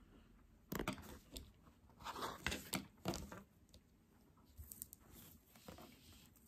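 Crinkling, crackling handling noise as ribbon bows are pressed and adjusted on a rhinestone-edged cardboard craft board: a cluster of sharp crackles from about one to three and a half seconds in, then lighter rustling of the materials.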